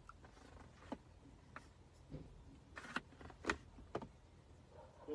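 A few faint, scattered clicks and taps, about five over several seconds, from a smartphone being handled and tapped in a quiet car.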